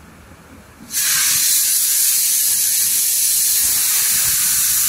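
Steam car wash machine's steam gun spraying steam: a loud, steady hiss that starts abruptly about a second in.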